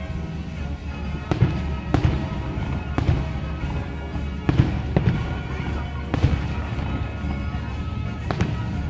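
Aerial firework shells bursting, about seven sharp bangs spaced irregularly a second or so apart, over steady background music.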